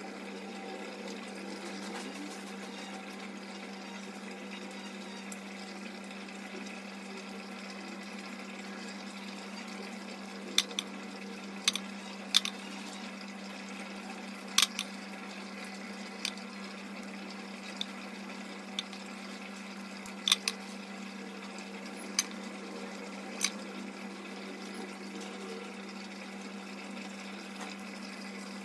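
Kitchen utensils clinking sharply against dishes about a dozen times, over a steady hiss and low hum.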